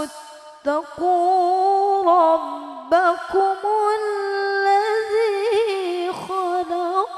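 A woman reciting the Qur'an in the melodic tilawah style into a microphone, holding long ornamented notes that waver up and down, with short breaths between phrases.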